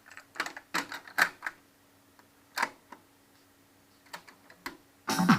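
Irregular mechanical clicks and clunks from a Victor PC-W330 boombox's controls being worked, over a faint steady hum. Music starts playing from the set near the end.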